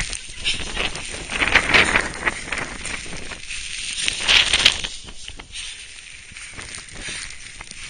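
Strong summit wind buffeting the microphone in irregular gusts, with rustling and crackling, easing somewhat after about five seconds.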